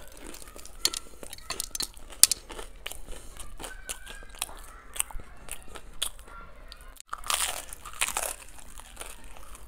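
Close-miked crunching and chewing of a crispy fried Kurkure-coated burger: sharp crackles throughout, with a louder stretch of crunching a little past halfway.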